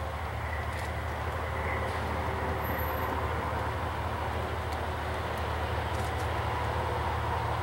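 Freight train led by an EMD SD70MAC diesel-electric locomotive approaching at slow speed, its diesel engine running steadily. The sound grows slightly louder as the train draws nearer.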